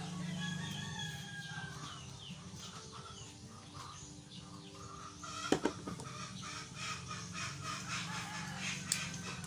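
Rooster crowing and chickens clucking over a steady low hum, with two sharp knocks about halfway through.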